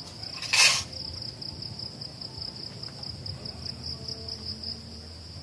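Crickets keep up a steady, high-pitched trill. A brief, sharp noise stands out about half a second in.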